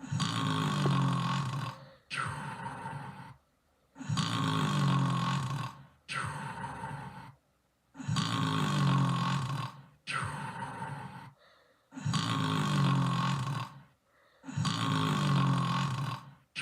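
A person snoring in a steady rhythm, about one breath every four seconds. Each longer, louder, deeper snore is followed by a shorter, lighter one, with brief silent gaps between.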